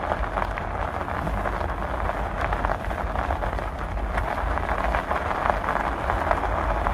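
Steady rushing noise with a deep rumble: wind buffeting the microphone and tyre noise while riding the Himiway Cruiser e-bike.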